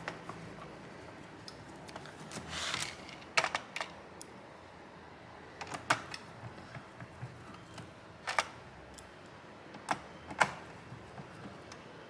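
Scattered sharp clicks and taps of a screwdriver and hands handling a laptop's plastic bottom case on a workbench, with a short rustle about two and a half seconds in.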